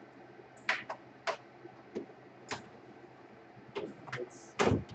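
Irregular sharp clicks and knocks of plastic laptop parts being handled and pressed shut, about seven in all, the loudest a knock near the end.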